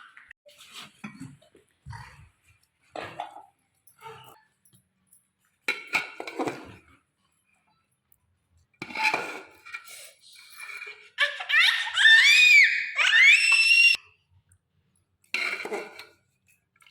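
Intermittent voices with a child's high-pitched squealing and laughing, loudest about two thirds of the way in.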